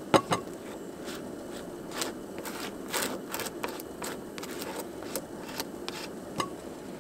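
Kitchen utensil sounds from preparing bread with cream cheese: a sharp double knock right at the start, then scattered light clicks and knife scrapes. Under them runs the steady low hiss of a pot of water simmering on the stove.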